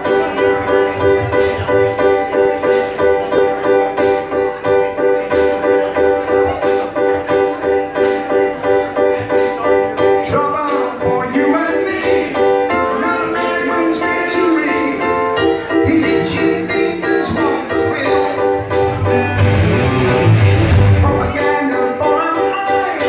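Live rock band playing, keyboards and electric guitars over a steady drum beat, heard from within the audience. A lead voice sings over it from about halfway through.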